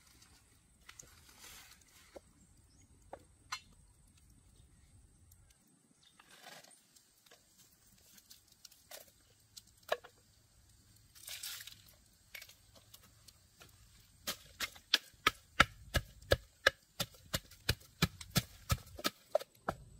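Wooden pestle pounding red chilies and garlic in a wooden mortar: steady, loud strokes about two to three a second, starting about two-thirds of the way through. Before that, scattered light knocks as the ingredients go into the mortar.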